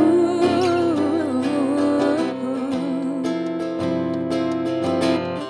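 Acoustic guitar strummed in a slow ballad accompaniment. Over the first three seconds a woman's voice sings a wordless, wavering melodic run with vibrato.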